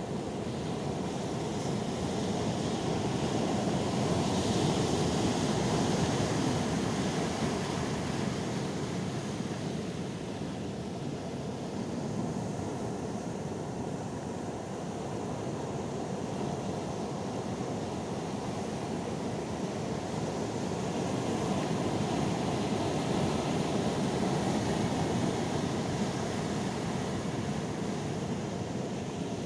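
Calm sea waves washing in, a steady rushing hiss that swells slowly twice, once about five seconds in and again in the last third.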